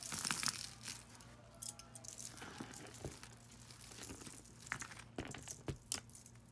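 A bag of costume jewelry being handled: the bag crinkling and rustling, loudest in the first half second, with scattered light clicks and taps of beads and chains.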